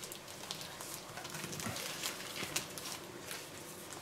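Baking paper rustling and crinkling under the hands as a bacon weave is rolled up in it, with scattered small clicks and no steady tone.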